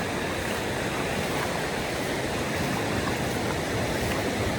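Sea surf washing onto the beach: a steady, even rush of breaking waves.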